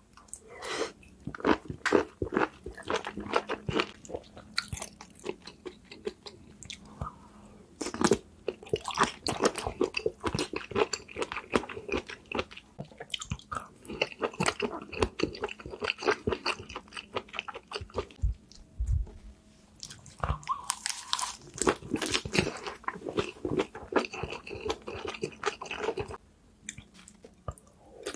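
Close-miked mukbang eating of a spicy seafood boil: wet chewing, biting and smacking mouth sounds, coming in bouts with short pauses between them.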